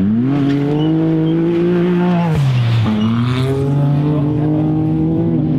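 Race UTV engine under hard throttle: its pitch climbs and holds high, drops sharply for a moment a little over two seconds in as the throttle lifts or a gear changes, then climbs and holds again.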